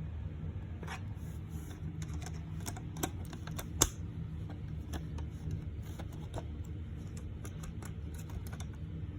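Small clicks and light rattles of a plastic smoke alarm being handled while a battery is fitted, with one sharp snap about four seconds in, over a steady low hum.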